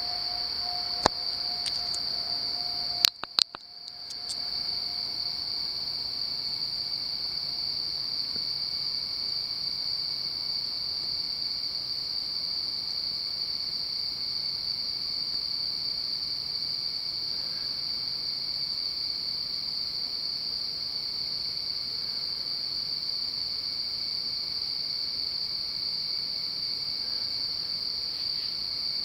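Steady, unbroken chorus of night insects with a high, even trill. A few sharp clicks come about one and three seconds in, and the sound briefly drops out just after the second.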